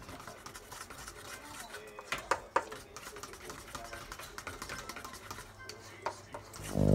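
Light clicks and knocks of kitchenware being handled, a few scattered taps with two sharper ones about two and a half seconds in.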